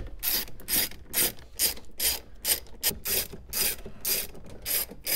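Socket ratchet on an extension clicking in quick, even strokes, about two and a half a second, as it backs out the 10 mm bolts that hold the factory radio in the dash.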